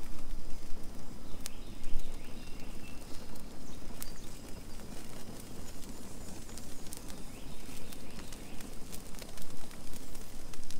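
Brush pile fire of dry branches burning, with scattered sharp crackles and pops over a steady low rumble.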